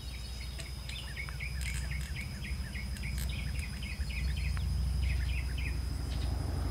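Birds chirping and insects droning steadily, with a low rumble building from about halfway through as a vehicle approaches on the road.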